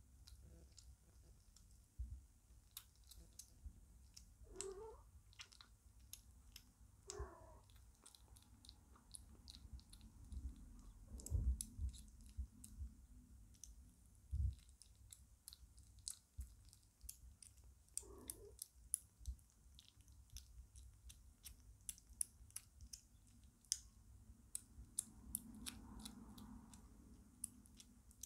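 Five-week-old British Shorthair kitten eating soft shredded meat: faint, quick, wet chewing and smacking clicks, with a few short squeaky sounds and a couple of low bumps around the middle.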